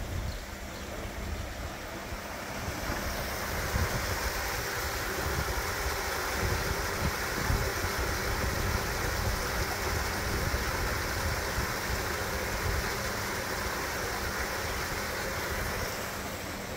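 Water gushing through a timber canal lock gate and splashing into the lock chamber below, a steady rush that swells about three seconds in and eases near the end. Wind rumbles on the microphone underneath.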